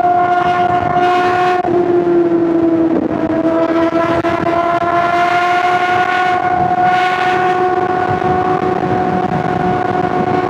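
Honda CBR600RR's inline-four engine held at high revs: a steady, high-pitched note that shifts only slightly in pitch, with brief breaks about one and a half and three seconds in.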